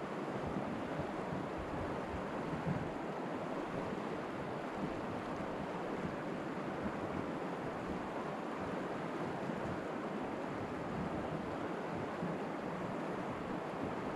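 Steady rush of river current through a shallow riffle, with wind buffeting the microphone.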